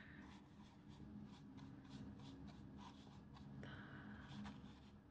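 Faint, quick scratching and tracing strokes on a paper calendar page, about three or four strokes a second, over a steady low background hum.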